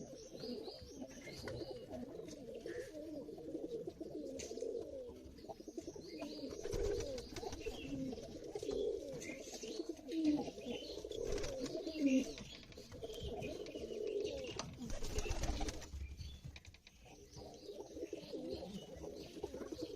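Several pigeons cooing continuously, their coos overlapping, with faint higher chirps among them.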